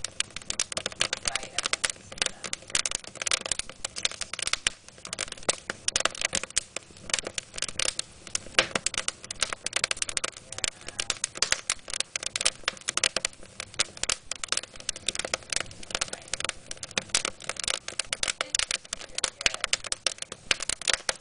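Wood fire crackling in a fireplace: a dense, uneven run of sharp snaps and pops from burning split logs.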